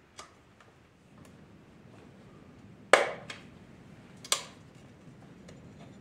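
Sharp clicks of the chrome headlight rim being worked back into the headlight shell with a screwdriver: two loud clicks about three and four seconds in, with a few fainter ticks around them.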